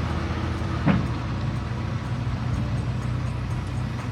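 A rotary drilling rig's diesel engine runs at a steady drone, with a short clank about a second in.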